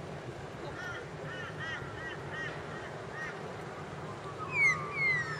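Birds calling: a run of short, rapid chirps, then two loud, harsh, falling squawks near the end, over a steady low background hum.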